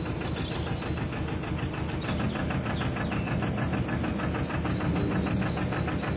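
Narrowboat diesel engine chugging steadily at cruising speed, with an even, rapid knocking beat.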